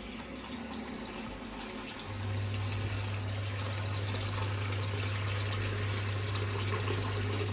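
Water from a kitchen tap running steadily over cut-up pigtail pieces, rinsing off the vinegar. A steady low hum comes in about two seconds in and carries on under the running water.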